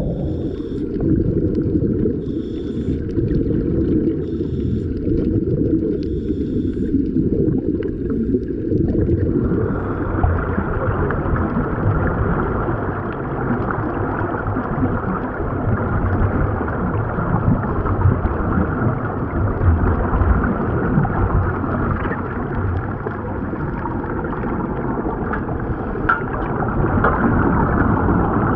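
Heavy bubbling and rumbling heard underwater, from air streaming out of sea-walk diving helmets fed by a surface air hose. About ten seconds in, the sound turns hissier.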